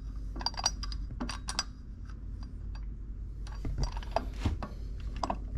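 Light metallic clicks and clinks from a go-kart torque converter being hand-fitted onto the crankshaft of a Predator 212 engine: the bolt and washer are turned by hand and the pulley is wiggled into its key. The clicks come irregularly in small clusters, a few with a brief metallic ring.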